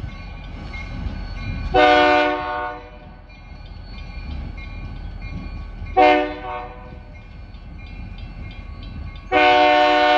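EMD SD40-2 locomotive's air horn blowing for a grade crossing: a long blast about two seconds in, a short blast about six seconds in, and a long blast starting near the end. Together with the blast just before, this makes the long-long-short-long crossing signal.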